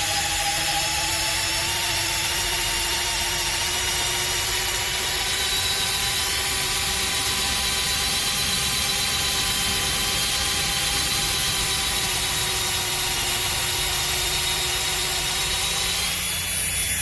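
Makita XPH07 brushless cordless drill running continuously under load, boring a paddle bit into oak at speed 1. The steady motor whine creeps slowly up in pitch.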